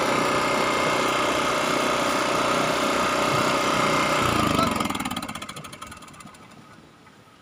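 Honda portable generator engine running steadily, then switched off about four and a half seconds in; its pitch falls and the sound dies away over a couple of seconds.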